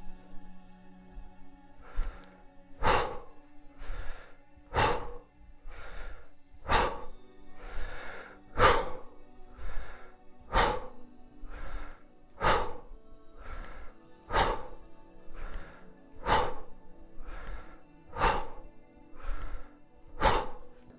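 A man's forceful breaths in time with one-arm kettlebell swings: ten strong exhales about two seconds apart, with quieter inhales between, the breathing paced to the swing, in as the bell rises and out as it drops. Faint background music runs underneath.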